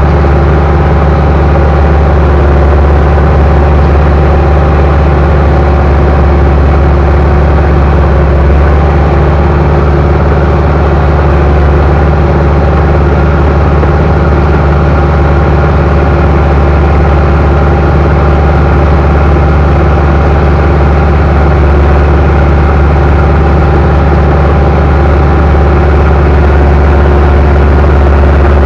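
Bulldozer's diesel engine running loud and steady, with an even low drone and no change in speed.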